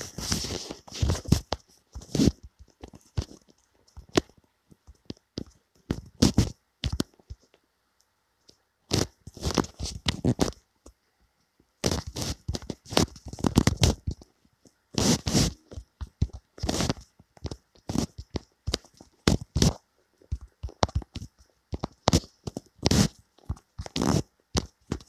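Fingertips tapping on a phone's touchscreen while typing on the on-screen keyboard, picked up by the phone's own microphone as irregular bursts of soft knocks and rustles separated by short pauses.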